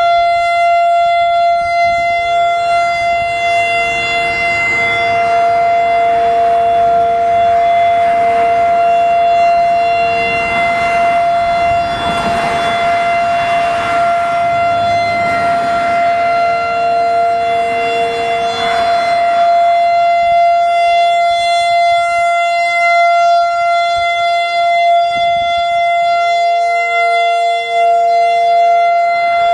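Whelen WPS 3016 electronic warning siren sounding a steady, unchanging alert tone during a scheduled siren test, with a weaker second siren tone pulsing beneath it. A rushing noise swells behind the siren for several seconds midway.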